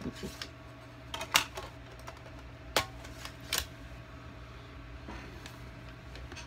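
Hands handling small objects: a few separate sharp clicks and taps, over a steady low hum.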